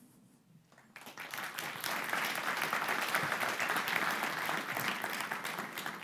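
Audience applauding: a second of quiet, then clapping from a large crowd that swells and holds, easing off near the end.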